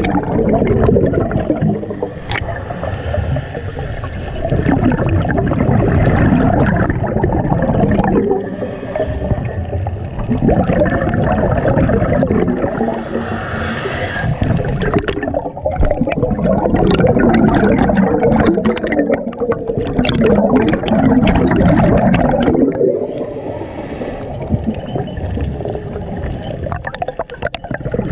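A scuba diver breathing, heard underwater: a rumbling, gurgling rush of exhaust bubbles from the regulator, broken every several seconds by the hiss of an inhale.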